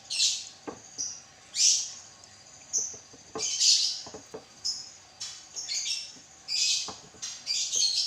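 Limes being squeezed by hand, the juice squirting out in repeated short spurts about once a second, with a few light knocks in between.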